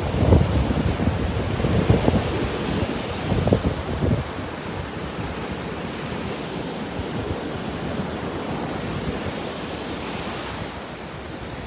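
Gulf of Mexico surf breaking and washing up the sand at the water's edge, with wind buffeting the microphone in gusts during the first few seconds. About ten seconds in, a wave's foam washes up with a hiss.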